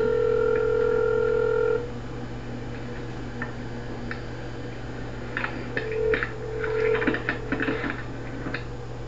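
Telephone ringback heard over the phone line as a call is placed: one steady ring of about two seconds, then a second ring about four seconds later that is broken up by clicks and crackle on the line.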